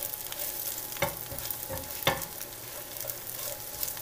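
Corn tortilla pieces sizzling in olive oil in a skillet as they toast and soften, stirred with a silicone spatula. Two louder strokes of the spatula against the pan stand out about one and two seconds in.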